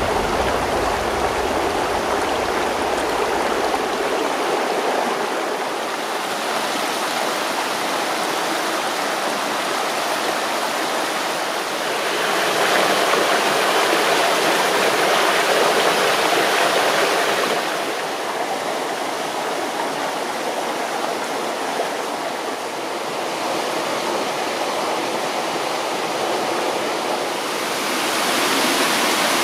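Rushing water of a mountain waterfall and its cascades, a steady roar, louder for several seconds in the middle and again near the end.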